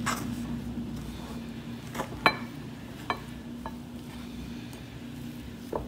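Metal fork stirring shaggy soda bread dough in a glazed ceramic mixing bowl: soft scraping with about six sharp clinks of the fork against the bowl, the loudest a little after two seconds in.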